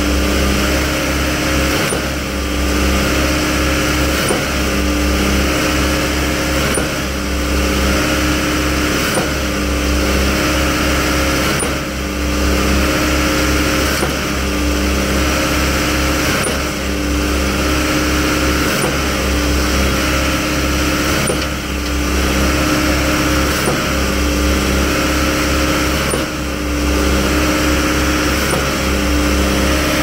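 Putzmeister truck-mounted concrete line pump running under load, its engine humming steadily with a regular surge about every two and a half seconds as the pump pistons change stroke, pushing concrete through the hose line.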